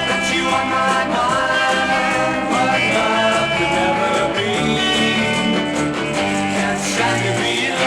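Music: a 1965 soul record playing, a full band with a steady beat.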